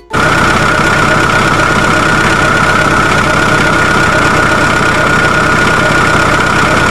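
Semi-truck engine running steadily, a dense low rumble with a steady high whine over it, cutting in abruptly.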